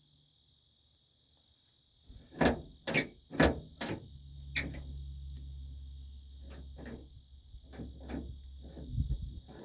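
A series of sharp mechanical clicks and clacks from a 1957 Ford F100's newly fitted door handle and latch being worked: four loud ones about half a second apart starting two seconds in, then a run of lighter clicks. Crickets chirp steadily throughout.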